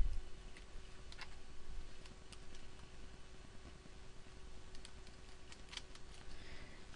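Computer keyboard typing: sparse, faint keystrokes coming a few at a time with pauses, over a faint steady hum.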